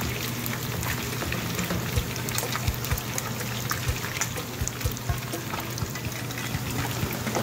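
Whole pomfret sizzling and crackling in hot oil in a frying pan, with frequent small pops, over a steady low hum.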